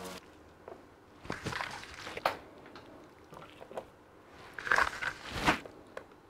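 Gloved hands handling shredded boiled pork skin and minced pork in a plastic tub: a few soft, wet squishes and rustles, the loudest about two seconds in and around five seconds in.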